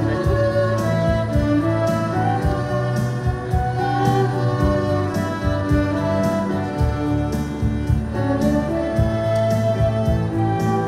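Small live ensemble playing a slow melody: violins over electric bass guitar and keyboard, with a steady beat.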